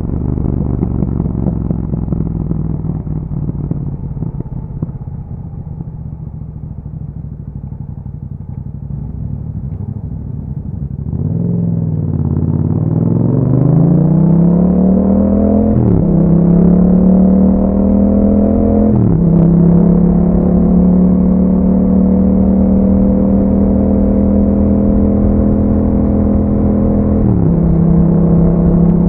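A 2021 Yamaha MT-07's 689 cc parallel-twin engine running through an Akrapovič exhaust with dB killers. It turns over at low, steady revs for the first ten seconds or so, then pulls away with rising revs. It shifts up twice in quick succession and once more near the end, holding steady revs between the shifts.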